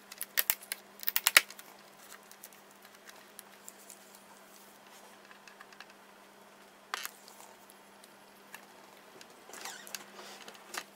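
Clicks and light taps of small laptop parts being handled during a teardown: a quick cluster in the first second and a half, a single click about seven seconds in and a few more near the end. A faint steady hum runs underneath.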